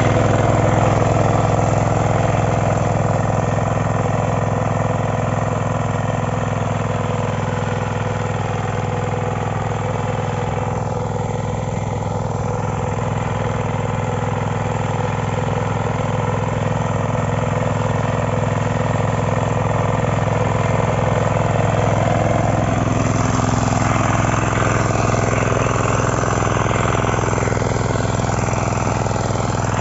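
Engine of a KK-IC-400E 9 HP power weeder running steadily while it tills the soil.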